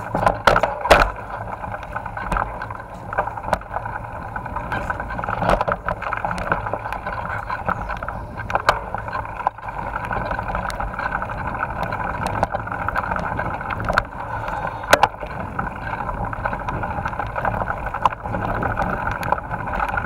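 Mountain bike riding fast along a dirt forest trail: a steady rush of wind and tyre noise, with frequent sharp rattles and knocks from the bike going over bumps.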